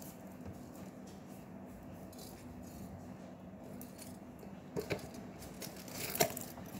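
Quiet room tone with a faint steady hum, faint handling noises, and two light clicks near the end.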